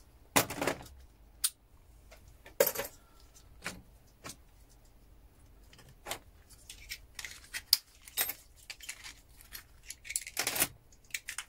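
Small metal relay parts clicking and clinking as relay switches are taken apart by hand: scattered sharp clicks, sparse at first and coming more thickly in the second half.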